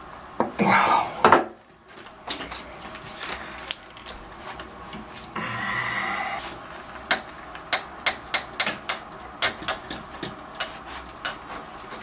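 A stuck Moen Posi-Temp shower valve cartridge being twisted and worked back and forth in its valve body: scraping and knocking, with loud bursts near the start and a quick run of sharp clicks later on. The cartridge is seized in place, which the plumber puts down to the valve not being used.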